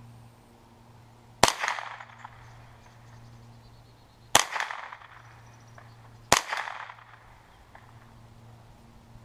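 Ruger 10/22 .22 LR semi-automatic rifle firing three single shots, the second about three seconds after the first and the third two seconds later. Each sharp crack is followed by a short echo.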